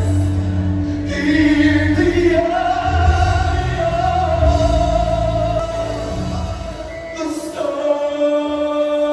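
Live gospel music: singing in long held notes over instrumental accompaniment with a low bass line. The bass drops out for a moment near the end.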